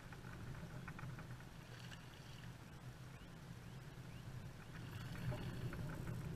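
Pond water sloshing and splashing as a hooked bass is played to the surface and grabbed by a wading angler, with scattered short clicks and splashes over a steady low rumble, growing louder near the end.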